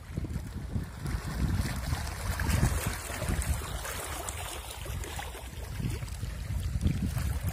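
Gusty wind rumbling on the microphone, with small wind-driven waves lapping on the reservoir's open water.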